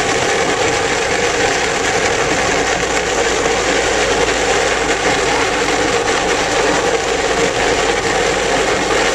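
Hard plastic wheels of a toy ride-on car rolling on asphalt while it is towed by rope, making a steady, loud grinding rumble.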